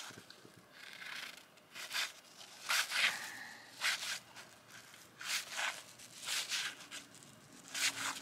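Trading cards being handled and flipped through, a short papery swish or rustle about once a second at an uneven pace.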